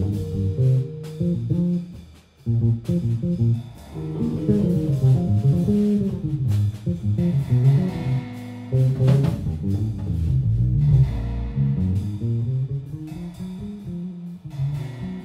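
Live jazz with the electric bass out in front, playing a busy run of low notes, with a drum kit and Rhodes electric piano behind it. The band breaks off briefly about two seconds in, then comes back in.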